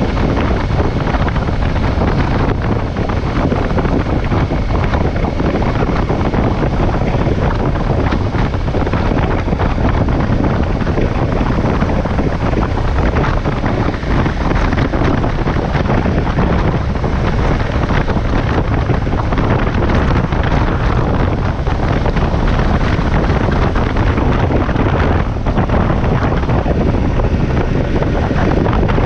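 Wind rushing over the microphone of a moving motorcycle, with a KTM 1190 Adventure's V-twin engine running underneath; the level is steady throughout.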